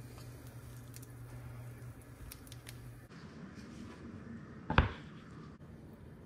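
Steady low hum with faint patter and ticks, then, after a change in the sound, a single sharp knock near the end as a wooden cutting board is set down on a stone countertop.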